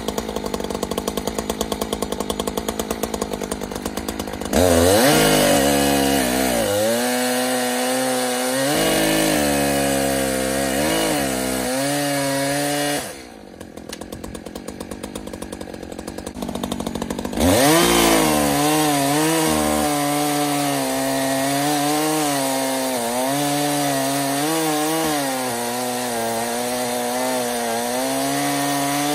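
ECHO Timber Wolf CS-590 two-stroke chainsaw idling, then revving up about four seconds in and cutting into the base of a standing tree, its pitch dipping and rising under load. About halfway it drops back to idle for a few seconds, then revs up and cuts again.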